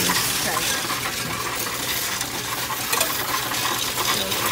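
Loose coins clattering as they are pushed by hand from the tray into a Coinstar coin-counting kiosk and rattle through its counter. A dense, continuous rattle of many small clicks.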